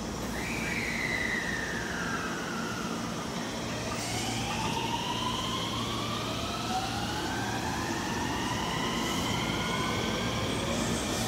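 Mitsubishi IGBT three-level VVVF inverter and traction motors of a JR West 223-2000 series electric train accelerating: one tone falls early on, then several tones climb steadily in pitch as speed builds, the so-called tornado-type magnet sound, over rail and running noise.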